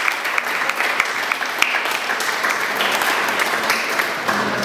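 Audience applauding: many hands clapping, beginning to die down near the end.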